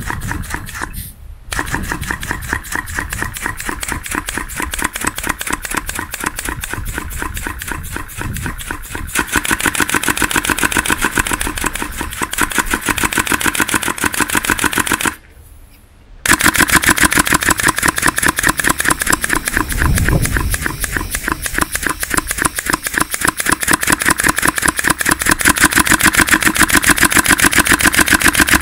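3D-printed V-twin compressed-air engine running, its quick exhaust valves cracking out the air in a rapid, even train of sharp pops like a small engine. It breaks off for about a second near the middle, then runs on.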